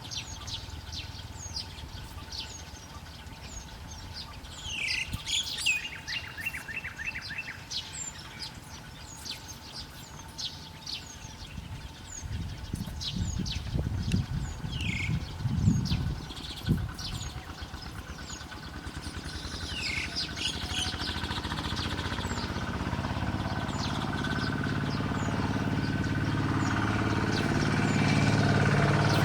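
Small birds chirping, many short high notes repeated throughout, with a few low thumps in the middle. From about two-thirds of the way in, an engine drone grows steadily louder, such as a passing motorbike.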